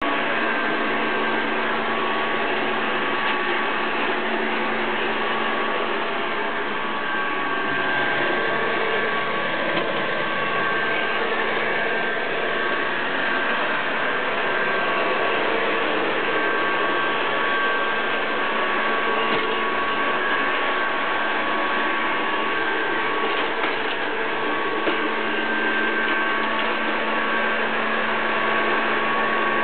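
Robot vacuum cleaner running, a steady suction and motor hum with a few constant high whining tones over it.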